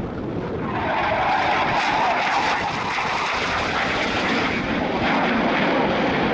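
Loud rushing jet noise from a Dassault Rafale C's two Snecma M88 turbofans during a display pass. It swells about a second in and then holds steady, with a brighter tone near the start that sinks slightly over the first few seconds.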